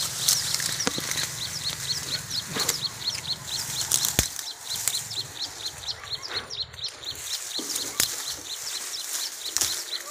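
Dry reed stalks rustling as they are pushed aside, with several sharp snaps and cracks. Behind it, a high chirp repeats steadily about four to five times a second.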